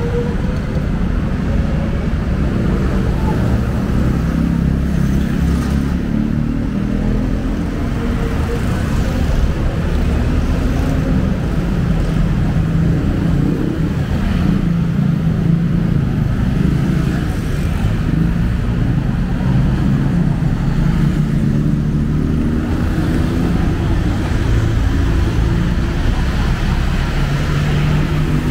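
Busy street traffic: the engines of passing road vehicles running in a steady, continuous rumble, with one engine rising in pitch right at the start.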